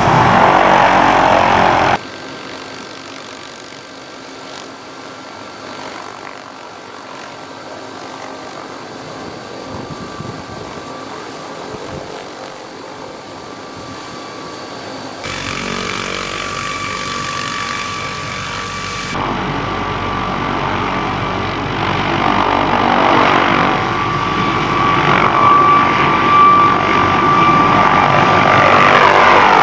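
MD 500-series light turbine helicopter running with its rotor turning: a steady turbine whine over the rotor beat. It comes as separate clips that cut abruptly about two seconds in, about fifteen seconds in and again about nineteen seconds in. It is much quieter in the middle stretch and grows louder toward the end.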